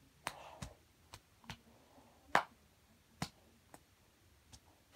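A child's hands clapping and slapping together: about eight short, sharp claps at uneven intervals, the loudest about halfway through.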